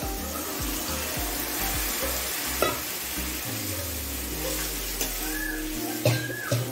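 Boiled dal poured into hot tadka oil in a metal kadhai, sizzling steadily as it is stirred with a steel ladle. The ladle knocks against the pan a couple of times, about two and a half seconds in and again near the end.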